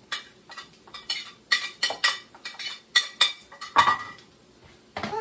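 Dishes and utensils clattering on a kitchen counter against a plate and a wooden cutting board: a run of irregular clicks, clinks and knocks that dies away about four seconds in.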